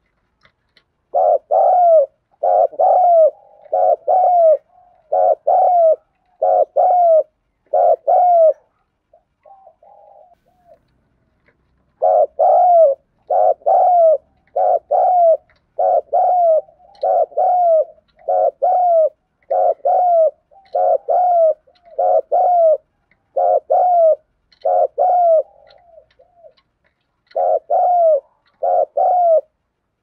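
Spotted dove cooing close up: quick runs of short, repeated paired coos, the excited 'thúc gù' coo. A pause of a few seconds with only a few soft notes comes about a third of the way in, then a long run.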